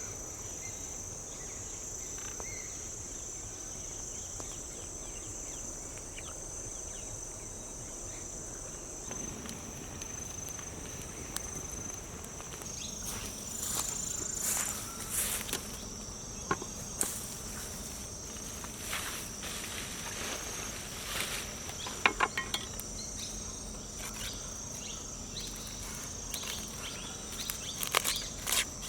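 Insects chirring in a steady high-pitched drone, with scattered small clicks and knocks joining in about halfway through, one sharper knock a little past the middle.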